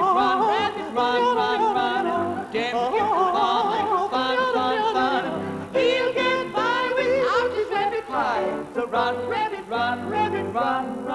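High, operatic-style singing voice with a wide vibrato and a few quick sliding runs, over grand piano accompaniment.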